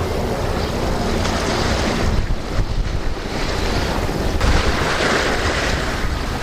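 Wind buffeting the microphone, a steady rushing noise heaviest in the deep low end.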